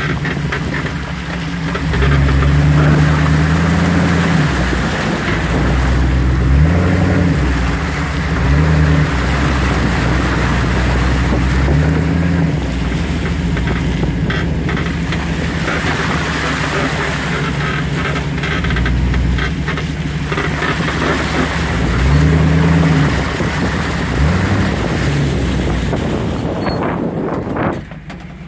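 Off-road vehicle's engine revving up and easing off several times as it drives over rough sandy trail and through shallow water, with constant tyre and wind noise.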